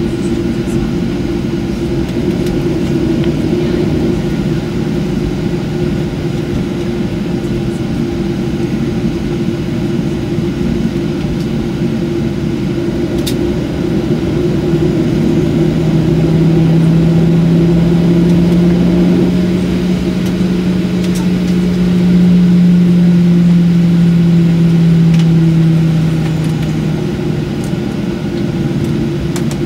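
Boeing 737 engines heard from inside the cabin while taxiing after landing: a steady hum, with a low engine tone that swells and rises slightly about halfway through, then fades away near the end.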